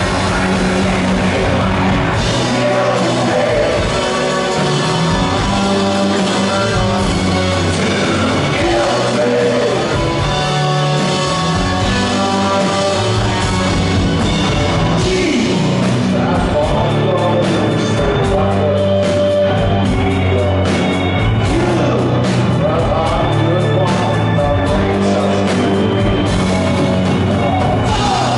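Live rock band playing, with a male lead vocal over electric guitar, bass guitar, drums and keyboard.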